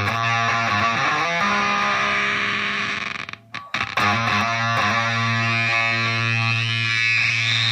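Electric guitar (Gibson SG 61 reissue, neck pickup) through a Zvex Fuzz Factory fuzz pedal into a Roland Cube 30 amp, playing thick, heavily fuzzed sustained low notes. The sound cuts out briefly about halfway through, and near the end a high-pitched squeal rises sharply in pitch.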